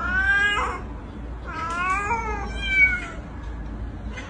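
Cats meowing: a long meow at the start, another about one and a half seconds in, and a higher, shorter call right after it.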